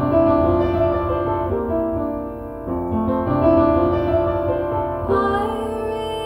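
Background music with sustained instrumental notes and a low bass line, the chords changing every second or so.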